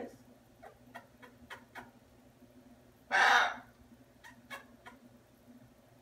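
Blue-and-gold macaw giving one short, harsh squawk about three seconds in, with a few faint clicks before and after.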